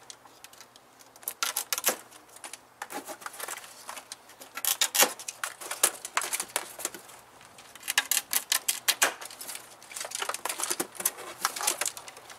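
Plastic packing straps on a cardboard shipping box being cut and pulled loose: irregular bursts of sharp clicks, snaps and rustling as the straps come free and scrape against the cardboard.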